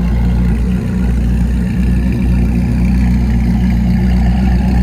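Koenigsegg Jesko's twin-turbo V8 idling steadily.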